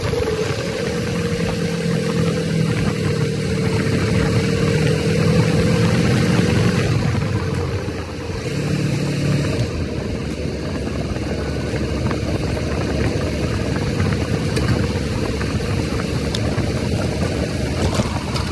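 An engine running steadily, with a constant rushing noise beneath it.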